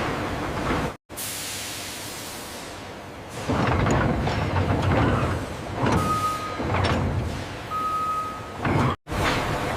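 Factory machinery noise made of separate clips cut together, growing louder and surging about a third of the way in, with two short high beeps near the end.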